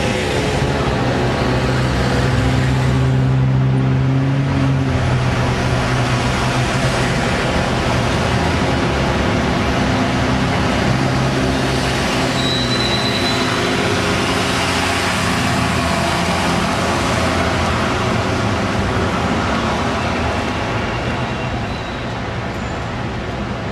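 Engine of a road vehicle running steadily under way in city traffic, its pitch shifting up and down several times as it changes speed.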